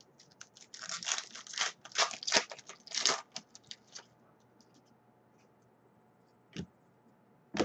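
A trading-card pack wrapper being torn open, a run of crackling rips lasting about three seconds, followed by two short taps about a second apart.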